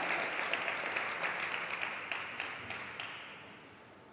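Audience applause after a point in a table tennis match, the clapping dying away over about three seconds.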